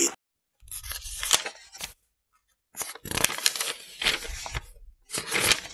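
Rustling noise in three bursts, each about one to two seconds long, with small clicks through it. The bursts are separated by short silent gaps.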